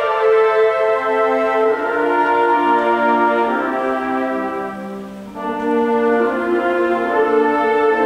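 Student orchestra of strings, woodwinds and brass playing held chords. The sound thins and softens about five seconds in, then swells back fuller.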